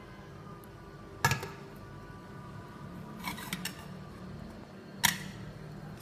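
Metal food pots and chopsticks clinking and knocking: two sharp clanks, about a second in and near the end, with a few lighter clicks between, over a low steady hum.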